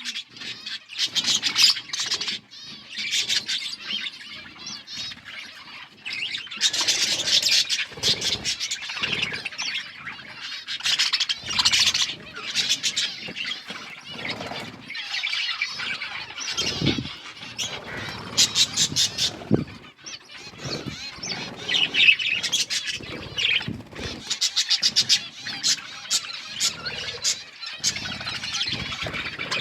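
A group of budgerigars chirping and chattering without a break, their rapid warbles and trills overlapping.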